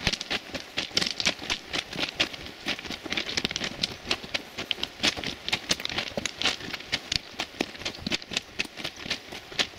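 Footsteps crunching on railway track ballast at a steady walking pace, loose stones clicking and grinding underfoot in a rapid, irregular stream.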